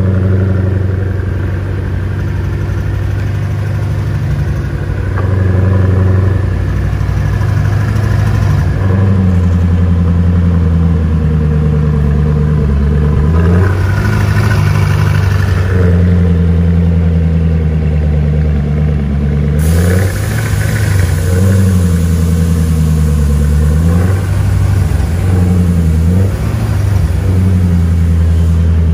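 Koenigsegg Agera RS's twin-turbo V8 idling, its revs swinging down and back up several times.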